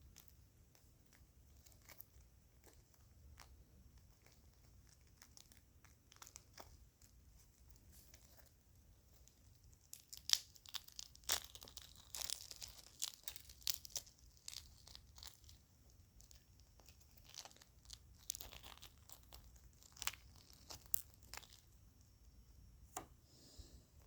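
Eggshell being cracked and crushed: small sharp cracks and crinkling, sparse at first, then a dense flurry of crackling about ten seconds in and another burst of it around eighteen to twenty-one seconds.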